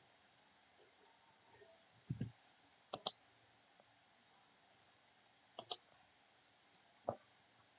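Computer mouse button clicks over a quiet background: a couple of single clicks and two quick double-clicks.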